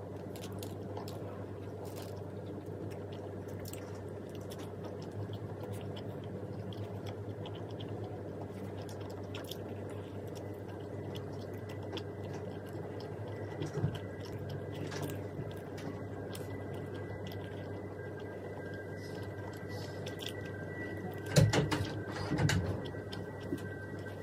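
Eating sounds: chewing and small clicks over a steady low hum, with a few louder knocks about 14 s in and again around 21–22 s in.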